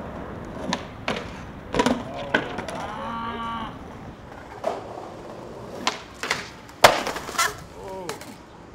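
Skateboard impacts on concrete and a stone ledge: a string of sharp clacks and slaps from wheels, tail and deck, the loudest about seven seconds in as the skater slams to the ground.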